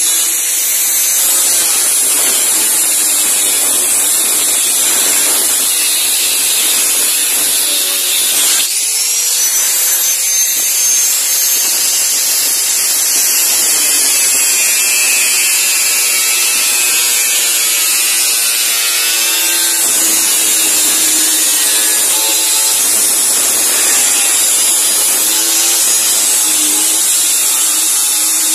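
Angle grinder with a cut-off disc running under load, cutting through the steel blade of a sugarcane machete. About a third of the way in the motor's pitch briefly drops and then climbs back as it spins up again.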